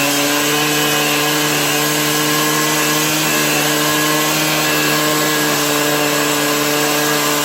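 Partner K1260 two-stroke power cutter running steadily at high revs, its blade cutting into a 300 mm concrete wall, with a constant engine pitch and a harsh grinding hiss.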